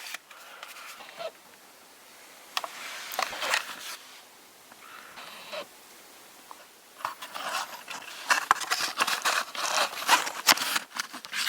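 Hands rummaging through a box of flashbulb packs: scattered clicks and rustling, turning into a busy run of clicks and rattling from about seven seconds in.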